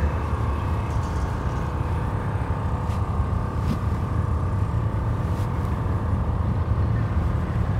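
Steady low engine rumble with a faint steady whine above it.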